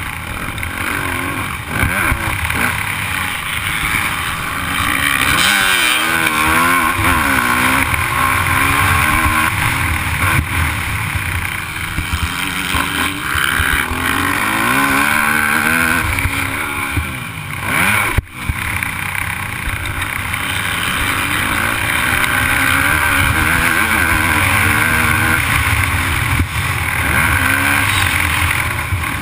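250-class motocross bike's engine heard from the rider's helmet, revving up and falling back over and over as the throttle opens and closes, with wind rushing over the microphone. About eighteen seconds in the engine briefly drops off and there is one sharp knock.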